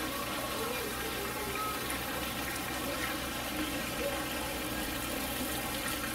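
Steady rush of flowing water, with faint voices of people in the background.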